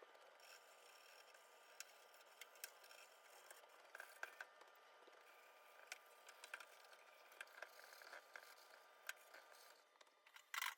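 Faint scrubbing and scraping while the stained inside of a microwave is cleaned, with scattered small clicks and knocks and a louder brief rustle near the end.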